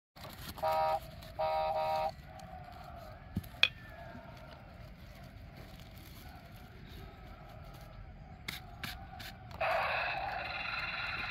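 Faint outdoor background with two short tones near the start, a few light clicks and scrapes from handling seedlings and the trowel on weed fabric, then background music comes in near the end.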